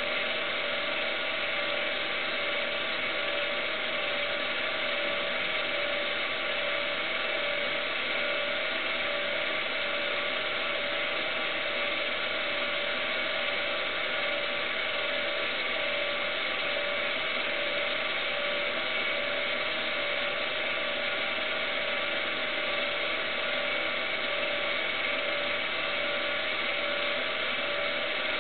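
Steady mechanical whirring hum made up of several constant tones, with no change in level.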